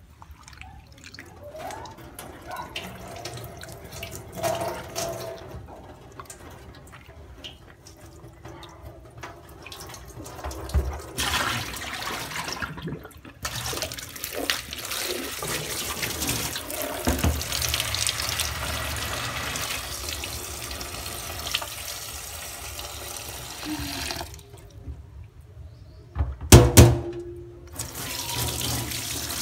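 Tap water running into a sink as sliced banana blossom is rinsed to wash out its sap. The flow starts about a third of the way in, stops, and runs again near the end. Just before it resumes there is one loud knock.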